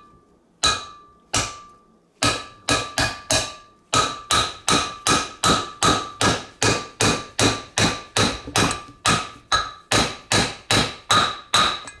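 A hammer striking a steel race-and-seal installer, driving a new wheel-bearing race into the hub of a disc brake rotor. Two separate blows, then after about two seconds a steady run of about three blows a second, each with a short metallic ring.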